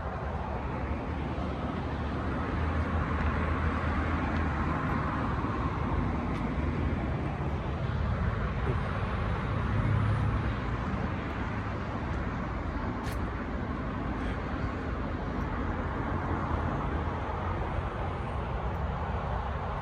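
Steady rumble of city road traffic, swelling as vehicles pass, most noticeably about three seconds and ten seconds in.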